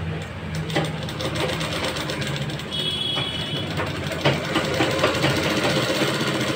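Sewing machine running steadily, its needle making a rapid, even clatter as it stitches a seam through cotton fabric.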